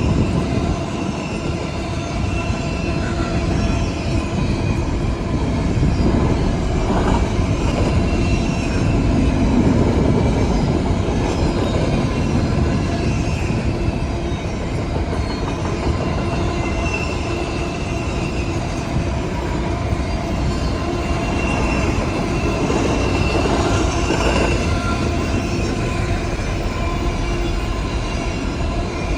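Freight train's intermodal cars rolling past: a steady rumble of steel wheels on rail, with thin high wheel-squeal tones coming and going over it.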